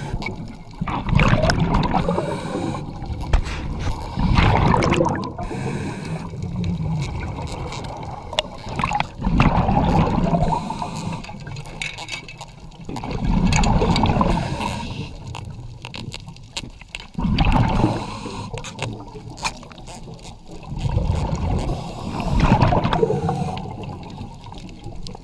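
Underwater water noise with gurgling bubbles, swelling and fading about every four to five seconds.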